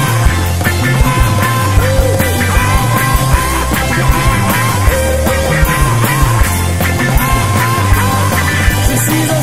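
French garage rock song with no words in this stretch: a full band over a steady drum beat and heavy bass, with a held lead line that bends in pitch.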